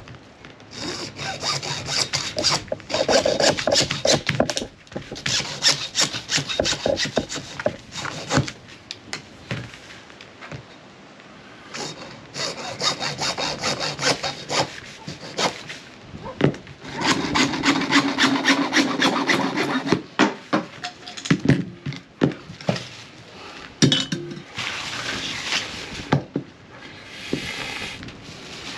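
Old cheap hacksaw cutting PVC pipe with rapid back-and-forth strokes, in several bouts of a few seconds each with short pauses between.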